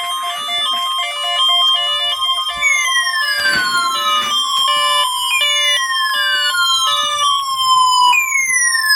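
Electronic siren-like alert tones: a pattern of beeping tones stepping up and down, joined about two and a half seconds in by repeated falling whoops. There are three whoops, each sliding down in pitch over about two and a half seconds.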